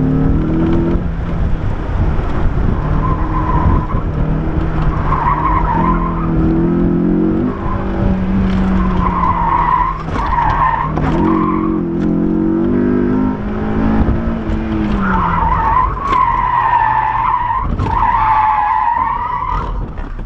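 Honda S2000's four-cylinder engine revving up and down through an autocross course while the tyres squeal in repeated stretches through the corners, longest near the end. The engine note falls as the car slows about fifteen seconds in, with a heavy low rumble of wind in the open cockpit and a few sharp knocks.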